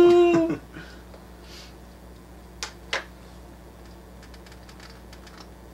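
A drawn-out spoken word trails off, then two short sharp clicks about a third of a second apart, followed by faint light ticking: small handling noises of the figure's parts and cloth being worked by hand at the table.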